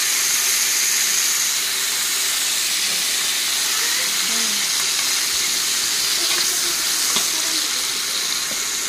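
Cubed potatoes sizzling as they fry in hot oil: a steady, even hiss.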